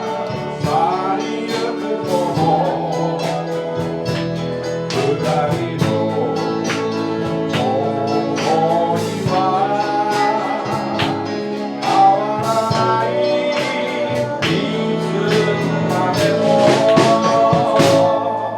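Live band playing a song: a singer over sustained instrumental chords, with regular drum and cymbal strokes.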